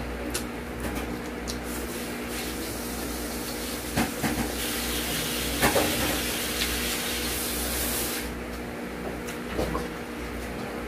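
Fried chicken being bitten and chewed close to the microphone, with sharp crunching clicks around four and six seconds in and again near the end. A hiss runs from about four and a half to eight seconds in, over a steady low hum.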